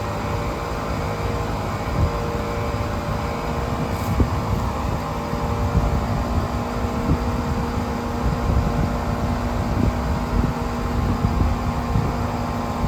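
Two Ruud central air conditioner condensing units running, their Copeland scroll compressors giving a steady hum under the rush of the condenser fans.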